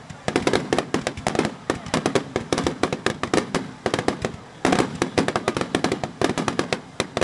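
Aerial fireworks going off in dense, rapid crackling pops, with a short lull about four seconds in before another thick cluster of cracks.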